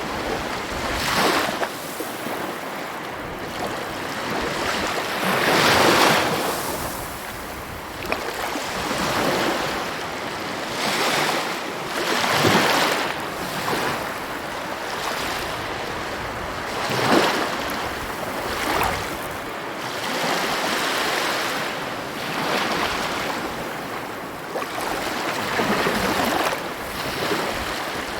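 Sea waves breaking and washing over a constant surf hiss. About eight louder surges rise and fall, one every few seconds.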